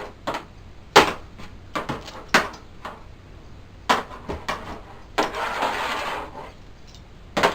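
A cat harness being handled and fitted: several sharp clicks and clatters of buckles and straps, and a longer rasping rustle about five seconds in.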